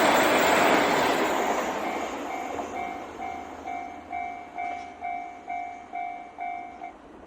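KiHa 261 series diesel limited express train passing over a level crossing, its running noise fading away over the first two seconds. As it fades, the crossing's warning bell comes through, ringing in an even rhythm of about two and a half strokes a second. The bell stops just before the end, the sign that the train has cleared the crossing.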